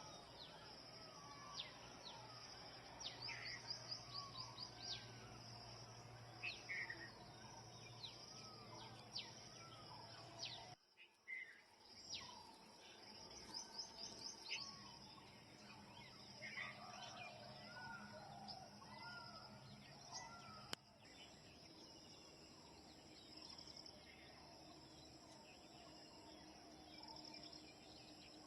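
Faint dawn chorus of many birds chirping and whistling over a steady high insect drone, with the sound dropping out briefly about eleven seconds in.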